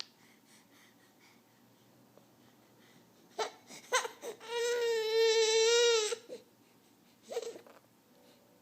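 A baby blubbering his lips while voicing: two short bursts, then one held, fast-wavering pitched note of about a second and a half, and a last short burst near the end.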